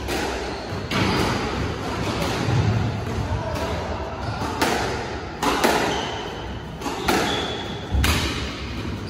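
Squash ball being hit by rackets and smacking off the court walls during a rally: a series of sharp, echoing impacts at irregular intervals.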